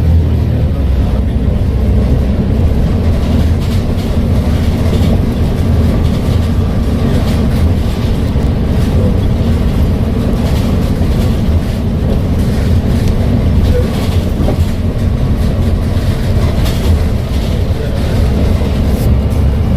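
Volvo B7TL bus's six-cylinder diesel engine and Voith automatic driveline running steadily under way, a deep drone with frequent rattling clicks.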